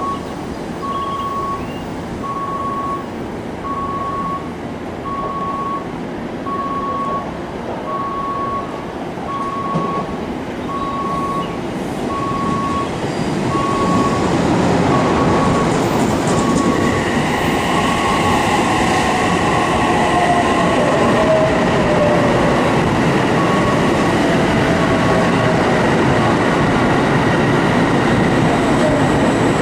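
Odakyu Line commuter train pulling into the station. Its rumble grows louder about halfway through, then a whine falls in pitch and a steady high squeal sets in as it slows. A short beep repeats about once a second through most of the first two-thirds.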